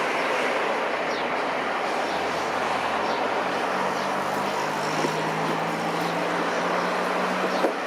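Steady rumble of an Airbus A320 airliner's jet engines, with a low steady hum joining it about four seconds in.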